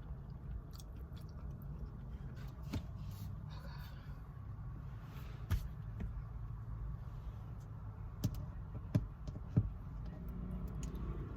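A person chewing Chinese food, with a few sharp clicks or taps, the loudest four in the second half, over a steady low hum.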